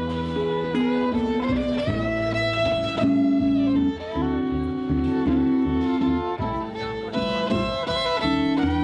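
Instrumental music: a violin playing a melody with sliding notes over guitar.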